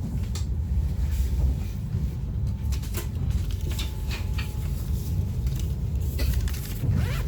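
Passenger train running: a steady low rumble with scattered clicks and rattles.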